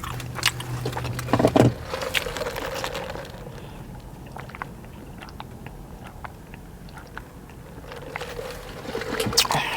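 Close-up chewing and mouth sounds of someone eating a chicken tender wrap: wet clicks and smacks, thinning out in the middle and picking up again near the end. A low hum stops about a second and a half in.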